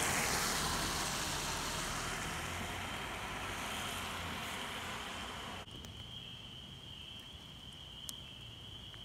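A vehicle passing on a wet road: tyre hiss that sweeps down in pitch at first, then fades slowly and cuts off about six seconds in. A steady high-pitched chorus carries on behind it.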